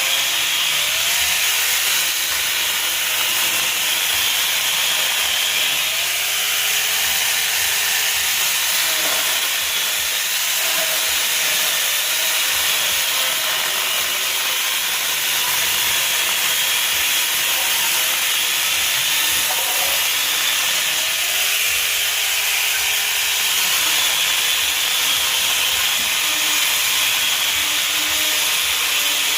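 Corded electric mini chainsaw cutting through wood: a steady, loud, hissing run of the chain in the cut, with the motor's pitch rising and falling twice as the load changes.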